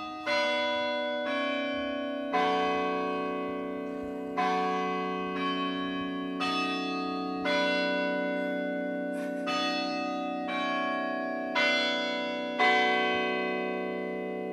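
Tower bells ringing a slow sequence of different notes, about one strike a second, each note ringing on under the next.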